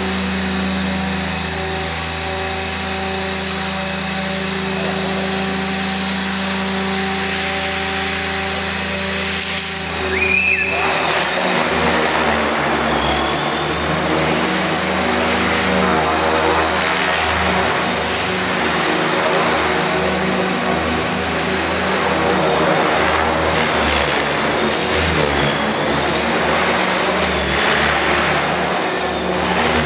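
Protos 500 electric RC helicopter's motor and rotors running, a steady hum with a whine while it hovers tail-down close to the floor. About ten seconds in the pitch jumps up and the sound turns louder and uneven as it climbs away and flies around the hall.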